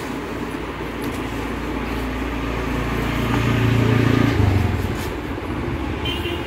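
Street traffic with a motor vehicle going past: a low engine rumble swells to its loudest about four seconds in, then fades.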